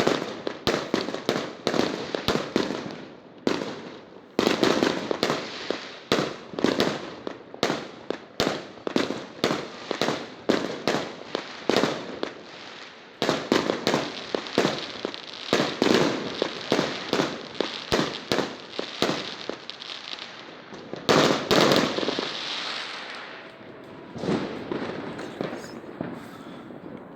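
Fireworks going off, a rapid irregular string of sharp bangs, several a second, each with a short echoing tail. The loudest cluster comes about three quarters of the way in, and then it dies away to fainter crackling near the end.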